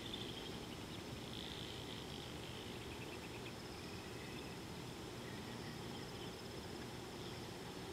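Natural outdoor ambience: a steady high-pitched insect trill, with a few short chirps and a brief ticking trill in the first few seconds, over a low background hiss.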